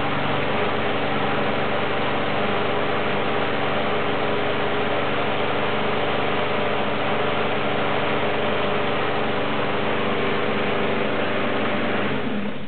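Walk-behind lawn mower's single-cylinder four-stroke 5.5 hp Honda engine running steadily at constant speed, then winding down and stopping near the end.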